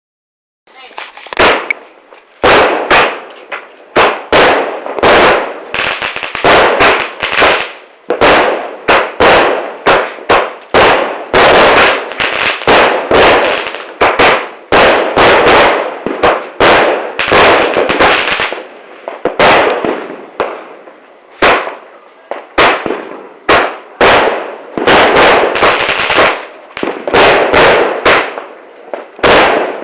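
Fireworks going off in rapid succession: loud, sharp bangs, often several a second, each followed by a long echoing tail, so that the bursts run almost without a break.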